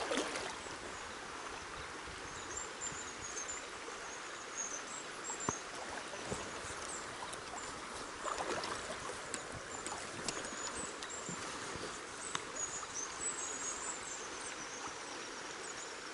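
River current running and rippling steadily, with high bird twittering at times and a few sharp clicks, one about five seconds in the loudest.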